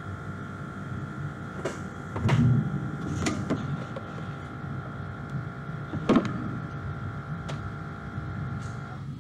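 Thermwood 5-axis CNC router moving under its Siemens 1FT5 servo motors: a steady whine over a low rumble, with a handful of sharp clicks and knocks as the axes move, two of them loudest. The whine cuts off just before the end.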